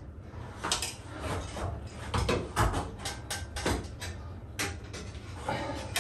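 Irregular knocks, clunks and rustling of tools and a solar fan being handled and pushed up through a wooden attic hatch.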